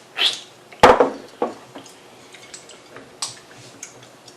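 Tableware clatter while eating: a sharp knock on a plate about a second in, followed by scattered small clicks and rustles.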